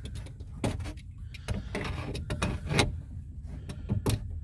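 Razor blade scraping and shaving the edge of a drilled hole in an IBC tote's plastic wall, cleaning off the burrs: a run of short, irregular scrapes over a low steady rumble.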